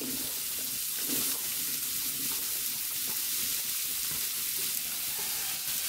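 Sliced onions frying in a little oil in a wide aluminium pan: a steady sizzle.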